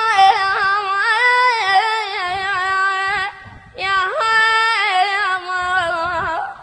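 A child singing unaccompanied in a high voice, a sad Iraqi song drawn out in two long, wavering melismatic phrases with a short breath between them.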